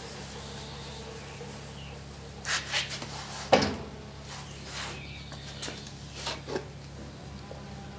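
A wooden foundry riddle (sand sieve) being knocked and set down on the molding bench: a couple of clattering knocks, then one loud wooden thump about three and a half seconds in, followed by a few lighter knocks. A steady low hum runs underneath.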